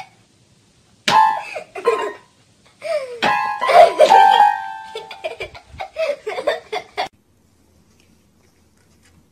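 A dog pressing the keys of a toy electronic keyboard: a jumble of electronic notes in bursts, stopping abruptly about seven seconds in.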